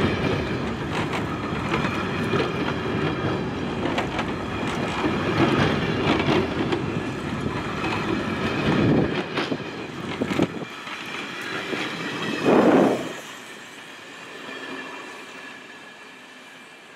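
Train rolling past, its wheels clicking over the rail joints. Near the end there is one loud rush, then the sound drops away as the last car goes by.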